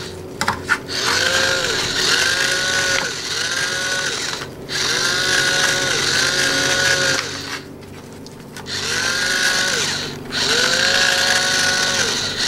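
Electric salt grinder grinding sea salt in short whirring bursts, about eight of them, each under a second, in runs of two or three; the pitch rises as the motor spins up and falls as it stops. A few sharp clicks come just after the start.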